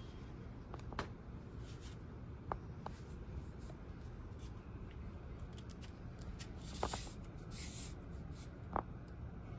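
Black Diamond aluminium trekking pole being handled and adjusted: a few scattered sharp clicks from its lever lock and pole parts, with a rubbing slide of the shaft sections about two-thirds of the way through.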